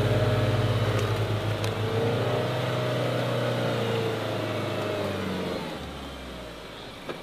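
Mahindra Thar's engine held at high revs as the SUV churns through deep mud, with the revs falling away about six seconds in.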